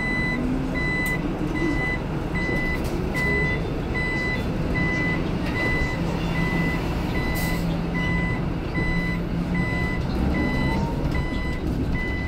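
Electronic warning beeper sounding short, even beeps about twice a second, over the steady rumble and road noise of a city bus driving along.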